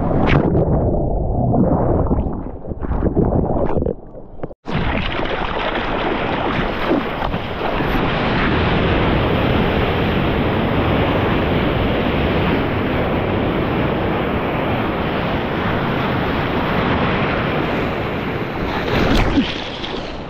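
Whitewater rushing and splashing past a surfboard riding a breaking wave, with wind buffeting the microphone. Uneven surges of splashing for the first few seconds, a brief cut-out about four and a half seconds in, then a steady loud rush of water that eases near the end.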